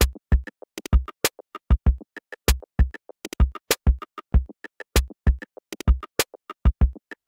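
Instrumental intro of an electronic pop song: a drum-machine beat of heavy kick drums and sharp snare and hi-hat hits, with short synthesizer notes between them.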